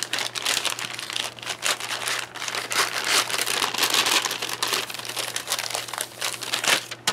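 Plastic MRE flameless ration heater bag crinkling and rustling as it is handled and worked open by hand, with a foil food pouch being fitted into it. The crinkling is heaviest about halfway through and eases off near the end.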